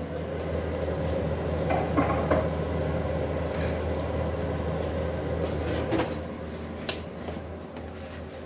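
Kitchen handling noises: a few sharp knocks and clicks, with one cluster about two seconds in and more near six and seven seconds, over a steady low hum.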